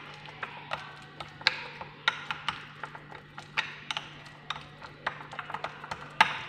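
A spoon stirring an egg-yolk and turmeric paste in a small glass bowl, clinking irregularly against the glass, with the sharpest clink near the end.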